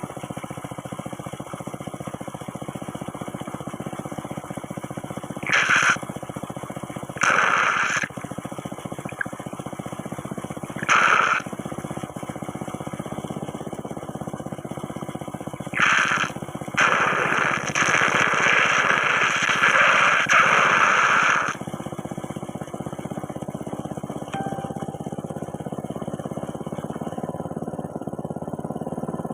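Water whirlpool making slurping, sucking sounds, like coffee being slurped: several short bursts and one longer slurp lasting about four seconds, over a steady low rumble.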